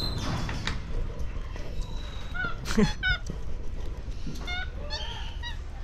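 Runs of short, repeated chirping animal calls, several a second, coming in two spells: one about two seconds in and another about four and a half seconds in.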